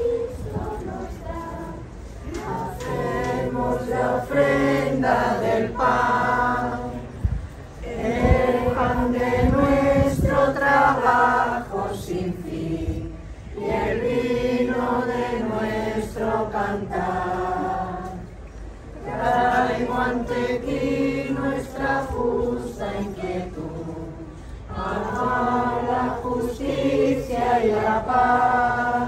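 A group of schoolchildren and adults singing a hymn of praise together, in phrases of five or six seconds with short breaks between.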